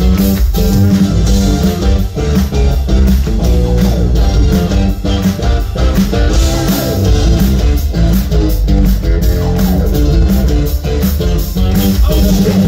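Live rock band playing loud: electric guitars, synth keyboard, bass and drum kit, with a steady drum beat.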